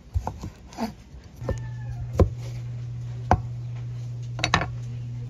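Kitchen knife slicing ripe jackfruit flesh into strips on a wooden cutting board: irregular sharp knocks of the blade on the board. A steady low hum comes in about one and a half seconds in.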